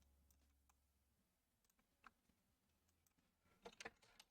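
Near silence broken by a few faint keyboard clicks, a handful about two seconds in and a short run near the end, as a search is typed.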